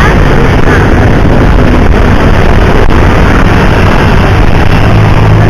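Loud, continuous vehicle noise on the road: a steady low engine hum under a dense rushing hiss, with wind on the microphone.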